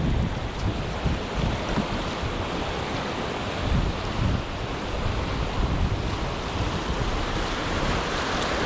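Steady rush of river rapids, with wind buffeting the microphone in low gusts.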